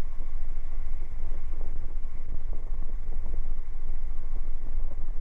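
Helicopter engine and rotor noise heard inside the cabin, a steady drone with a heavy low rumble.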